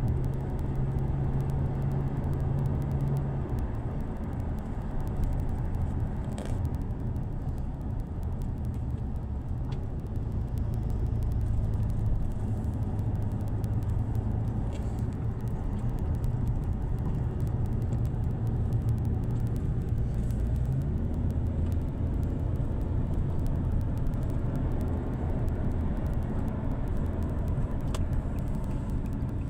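Motor vehicle running, a steady low rumble of engine and road noise, with the engine note changing pitch a few times.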